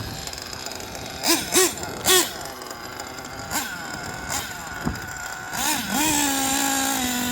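Kyosho Inferno NEO ST 3.0 RC car's nitro engine revving in a few short blips, then held at a steady high rev for about the last second.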